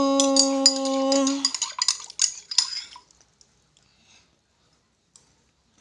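A woman's drawn-out, sung-like count that ends about a second and a half in, over a run of sharp clinks of a spoon against its cup during spoon-feeding, which stop about three seconds in.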